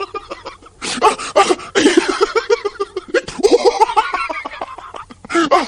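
A person laughing hard in several bouts of quick, pulsing ha-ha's with short breaks between them.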